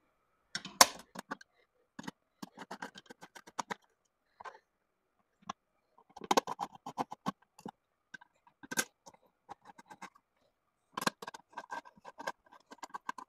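Small screws being driven by hand with a screwdriver and small metal parts being handled: bursts of quick clicking and rattling, with a sharp click about a second in.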